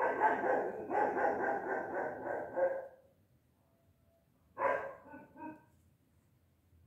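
A dog barking in a quick run over the first three seconds, then one more bark and two short yips about five seconds in.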